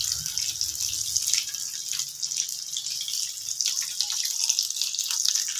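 Oil sizzling steadily with small crackles around chicken seekh kebabs shallow-frying on skewers in a flat pan.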